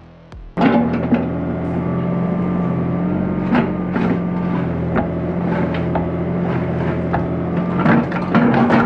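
Mini excavator's diesel engine running steadily under hydraulic load as the bucket digs and scrapes through stony rubble, with repeated knocks and clatter of stones. It starts suddenly about half a second in.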